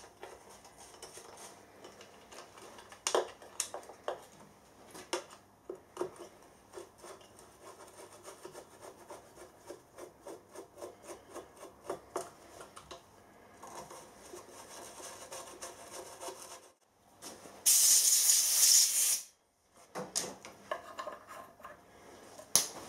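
Hand reassembly of a milling machine's one-shot lube oil pump: small metallic clicks, knocks and scrapes as a screwdriver turns the screws of the reservoir lid, with a run of light even ticks in the middle. Late on, a loud hiss lasts about a second and a half.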